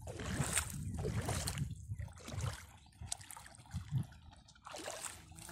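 Small waves lapping at a sandy river shore, with an uneven rumble of wind on the microphone.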